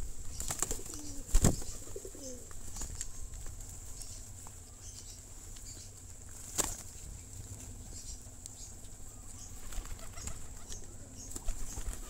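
A flock of domestic pigeons crowding in to feed: wings flapping and scuffling, scattered sharp clicks of pecking, and some cooing. A sharp thump about a second and a half in is the loudest sound, and a second, smaller one comes about six seconds in.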